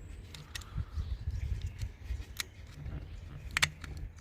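Sharp small plastic clicks and taps from handling a pickup's turn signal bulb and its socket as the new bulb is pushed in, the loudest a quick double click about three and a half seconds in, over a low rumble.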